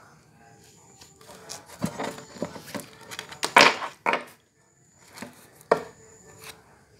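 Playing cards slapped and laid down on a wooden table: a series of sharp knocks and slaps, the loudest about three and a half seconds in.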